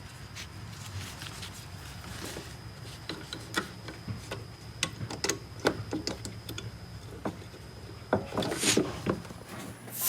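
Scattered light clicks and knocks of a car headlight assembly and its plastic fittings being handled and refitted, over a steady low hum, with a louder scraping rustle about eight and a half seconds in.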